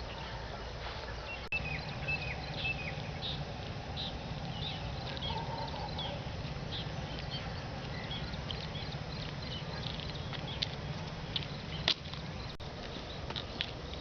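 Birds chirping and calling in quick short notes, a few of them falling in pitch about two seconds in, over a steady low rumble.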